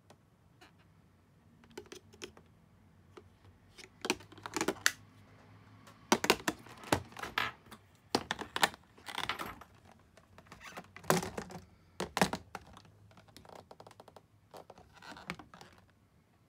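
Plastic makeup compacts and cases being handled and knocked against a clear plastic tray: irregular clicks, taps and plastic rustling, loudest in a few clusters in the middle.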